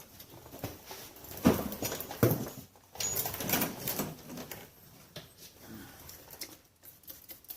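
Scattered knocks and clinks of tools and metal parts being handled during ATV front axle and suspension work. The two loudest knocks come about one and a half and two and a half seconds in, with lighter ticks and rustling between them.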